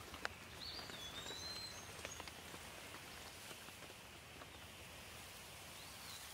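Soft steady rain with individual drops ticking on leaves, the drips most frequent in the first couple of seconds. A bird gives short chirps about a second in and again near the end.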